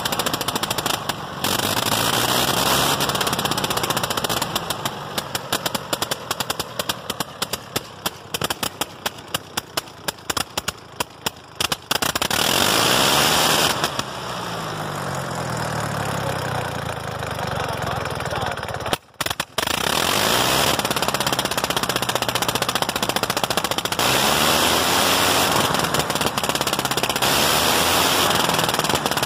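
1918 Gnome rotary aircraft engine running with its propeller turning, a rapid staccato firing. From about four seconds in it runs quieter and rougher, with separate uneven beats, then picks up again. It cuts out for a split second a little past the middle and then runs on loud and steady.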